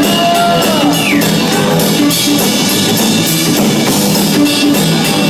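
Rock music: a held note trails off downward about a second in, then the band plays on with drums and guitar.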